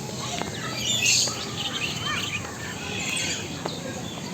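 Many birds chirping and calling at once, short overlapping chirps and whistled glides, with a louder burst of calls about a second in.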